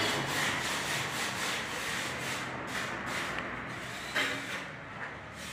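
A steel trowel scraping cement mortar across a concrete floor in quick, repeated strokes, as the mortar bed is spread for a floor tile. A sharp knock comes about four seconds in.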